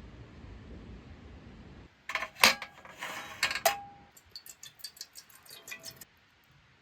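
Camp cookware and utensils being handled: a cluster of sharp clinks, one ringing briefly, then a run of light ticks and clicks. A low rumbling noise cuts off about two seconds in, just before the clinks.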